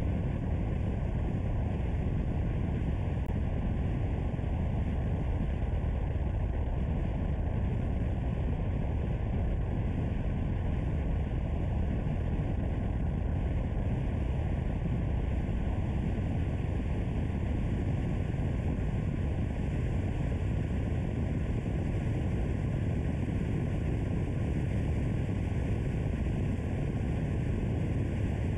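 Steady rumble of a car driving along a road: tyre, engine and wind noise, even throughout with no changes.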